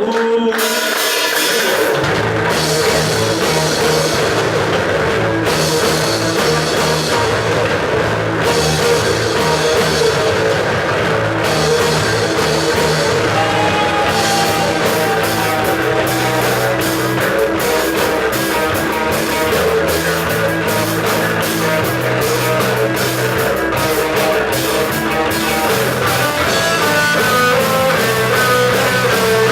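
Rock band playing live without vocals: drum kit and guitar, with low notes coming in about two seconds in.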